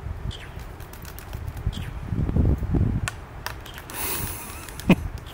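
Waved albatrosses clacking their bills together in the courtship dance: scattered sharp, wooden-sounding clacks, with the loudest one near the end.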